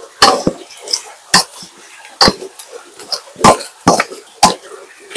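A series of about ten sharp knocks and thuds at uneven intervals, roughly two a second.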